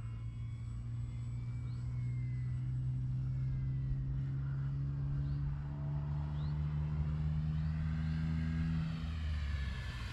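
Electric motor and propeller of a large RC Cessna 182 foam model in flight, a steady droning hum whose pitch shifts slightly about nine seconds in.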